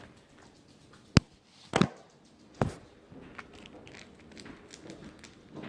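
Three sharp knocks, the first the loudest, about a second in and then under a second apart, followed by a few faint light ticks.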